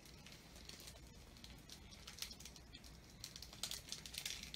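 Faint rustling and crinkling of paper and plastic packaging as a hand rummages through items in a cardboard box, with a few louder crinkles near the end.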